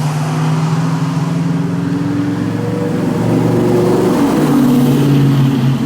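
A motor running with a steady hum, its pitch shifting slightly about four seconds in.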